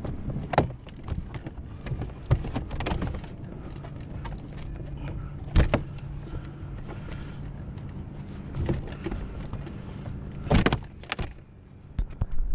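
Knocks and clacks of a Porta-Bote folding dinghy's hull and stern transom being fitted and locked together: a handful of separate sharp hits, the loudest about halfway through and a quick cluster near the end, over a steady low hum.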